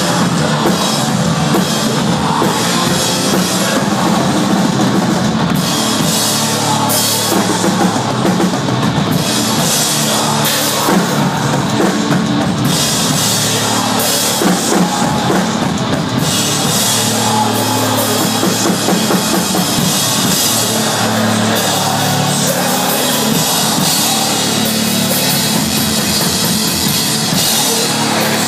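Live metalcore band playing at full volume, with the drum kit prominent.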